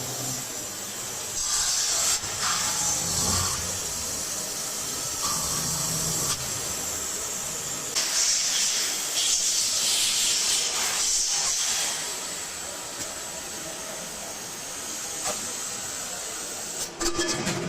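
Loud hissing noise in bursts, strongest about two seconds in and again from about eight to twelve seconds, over a steady noisy background, with a few sharp clicks near the end.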